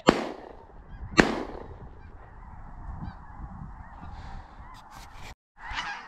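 Two shotgun shots, one right at the start and another about a second later, over the steady calling of a large flock of geese.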